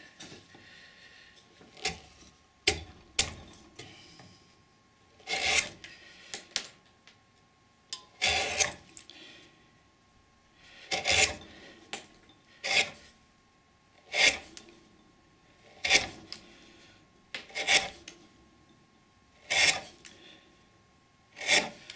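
Hand-pushed wood-carving gouge paring shavings off the top of a wooden block to smooth it level: about ten separate short scraping cuts, one every second and a half or two, with a few sharp clicks of the tool on the wood in the first few seconds.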